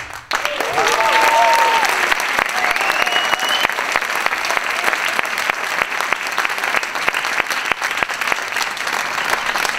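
Theatre audience applauding as the music ends, with a few cheers and a high whistle in the first few seconds.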